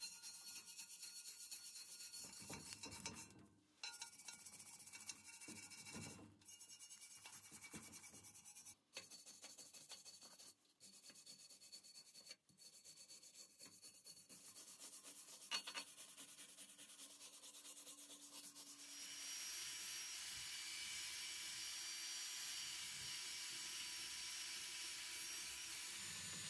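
Handheld brass wire brush scrubbing rust off a cast iron Christmas tree stand in short back-and-forth strokes, in a string of short clips. About two-thirds of the way through the scrubbing gives way to a steady hiss.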